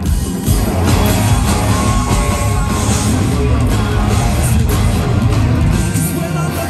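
Live rock band playing loud through the stage PA: drums, electric guitar and keyboards.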